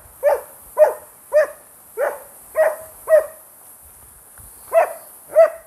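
A dog barking repeatedly in short, evenly spaced barks, about two a second, with a pause of a second or so in the middle.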